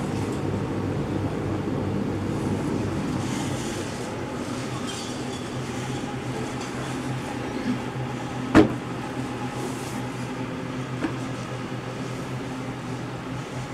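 Steady mechanical hum with several steady tones. A single sharp knock comes about eight and a half seconds in, with fainter clicks a second before and a few seconds after.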